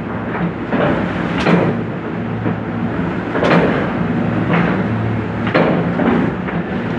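Hand-fed sheet die-cutting machine running: a steady motor hum under a sharp clack about every two seconds, with a softer knock between each pair.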